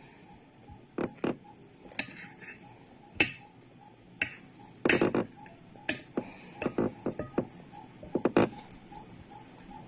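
Cutlery knocking and clicking against a dish as fried rice is eaten, in irregular sharp knocks, the busiest and loudest stretch about five to eight seconds in. A faint steady ticking runs underneath.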